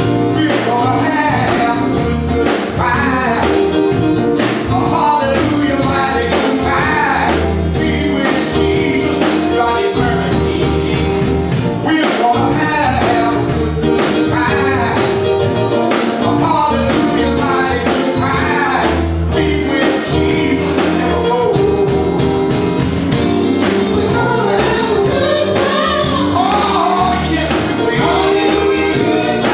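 Live gospel music: a group of singers, lead and backing vocals, singing through microphones over electric bass guitar and keyboard, with a steady beat throughout.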